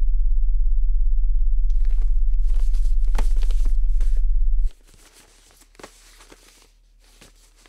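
A loud, steady low hum that cuts off abruptly a little past halfway, with irregular crackling starting about two seconds in and carrying on faintly after the hum stops.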